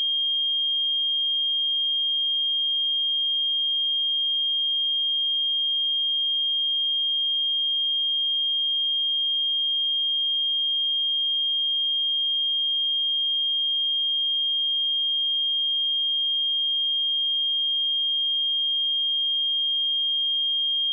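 A pure 3222 Hz sine-wave test tone, a single steady high-pitched tone at constant level.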